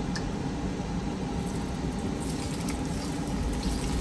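Hot oil poured from a frying pan over steamed fish with ginger and shallots, giving a faint sizzle with scattered crackles, over a steady low background hum.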